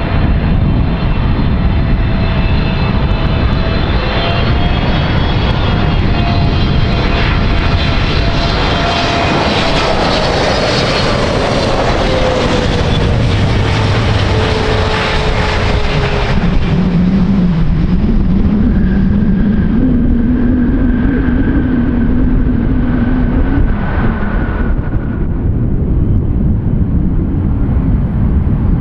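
Jet airliner passing close by, its engine whine falling in pitch as it goes past, over a continuous loud rumble.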